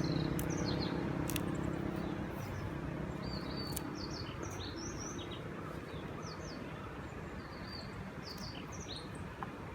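Small birds chirping, many short high notes in quick runs, over outdoor background noise. A low hum fades away over the first few seconds.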